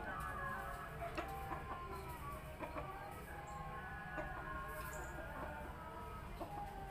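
Chickens clucking, several short calls overlapping at different pitches.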